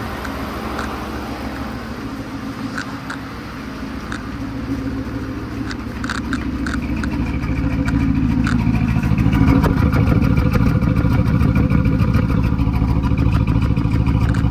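Freshly swapped, cammed 5.7 Hemi V8 in a Dodge Charger running while it warms up. It gets louder from about six seconds in and stays loud from about nine and a half seconds on.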